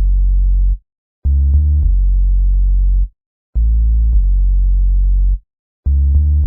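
Electronic music: deep, loud synthesizer bass chords held for about two seconds at a time, each cut off by a short gap of silence, three times.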